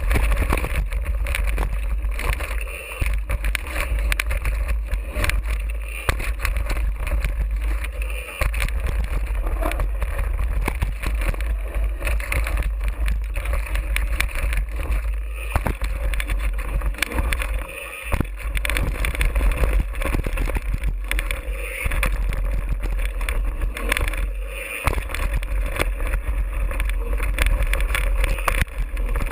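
Mountain bike descending a rough dirt and gravel trail at speed: wind rumbling on the action camera's microphone, with tyres crunching over the dirt and repeated rattles and knocks as the bike and camera mount jolt over bumps.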